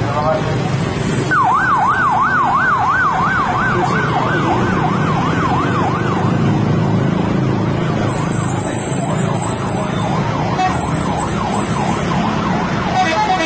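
A warbling electronic siren, its pitch swinging up and down about two and a half times a second, starting about a second in and fading away over the second half, with a low vehicle rumble underneath.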